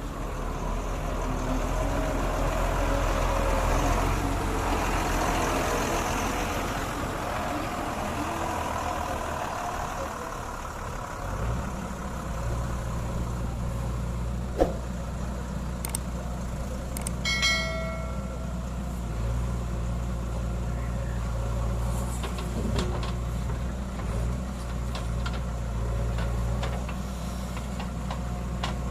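JCB 3DX backhoe loader's diesel engine running under working load, heavier for the first ten seconds or so and then settling to a steady drone. A sharp knock falls about halfway through, and a brief high tone follows a few seconds later.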